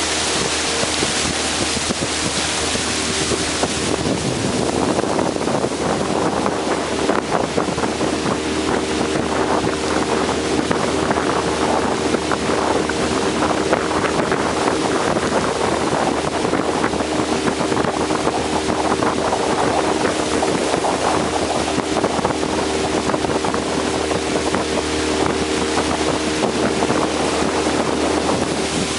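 A boat's motor running at a steady speed while under way, with water rushing along the hull and wind buffeting the microphone.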